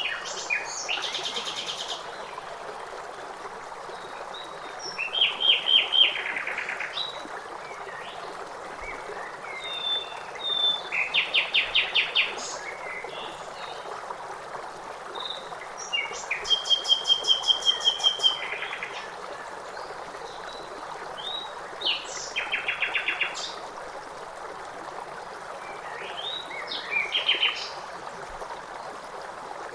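Songbirds singing over a steady flowing stream. Short phrases of rapid, repeated chirping notes come every few seconds, about six times, above the even rush of the water.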